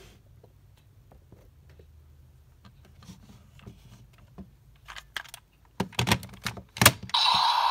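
Hard plastic clicking and clattering as a toy transformation belt (Kamen Rider Saber's DX Seiken Swordriver) is handled and a Wonder Ride Book is fitted into it, the clicks growing louder with a few sharp snaps near the end. Just before the end, the toy's electronic speaker starts a loud sound effect.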